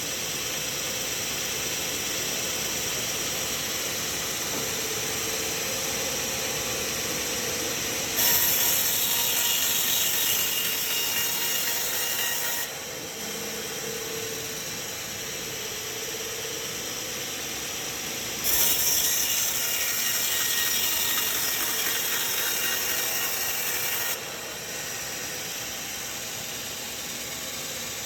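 Sawmill machinery running steadily, with two louder, hissing stretches of about five seconds each, a third of the way in and again past the middle, as the saw cuts through the log.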